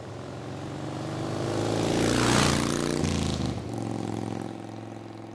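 A car driving past, its engine and tyre noise growing louder to a peak about two seconds in, then dropping in pitch and fading as it goes away.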